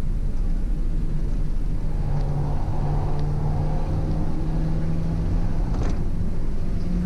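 Stock NB2 Mazda Miata's 1.8-litre four-cylinder engine pulling under load at track speed, heard from inside the cabin over a steady low rumble; the engine note rises gradually through a gear.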